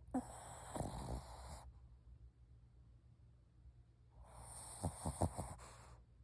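A sleeping dog snoring: two noisy snoring breaths about three seconds apart, the second with a quick fluttering rattle.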